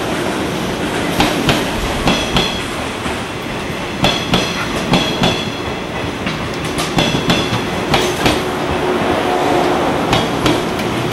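583 series electric train rolling slowly along the platform, its wheels clicking in pairs over the rail joints under a steady running rumble, with a faint metallic ring on some of the clicks.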